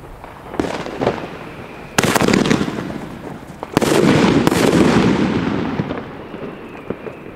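30 mm salute shells fired from single-shot bomb tubes (Iskra Siemanko Sredni). A small launch pop comes first, then loud bangs about two and about four seconds in, each followed by a long rolling echo.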